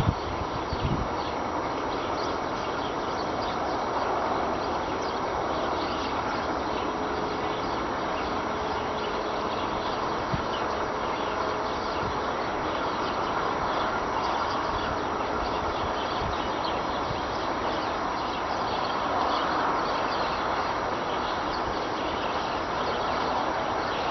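A steady, unbroken rushing roar like wind, heard on a windless morning; its source is unexplained, and the recordist rules out parked cars and the expressway.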